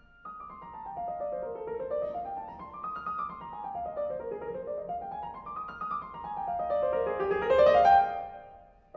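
Background piano music: quick runs of notes that fall and rise again in repeated waves.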